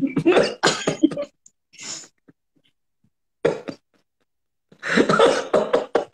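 A man's stifled laughter behind a hand over his mouth, in short choppy bursts with silent gaps. The longest burst comes near the end.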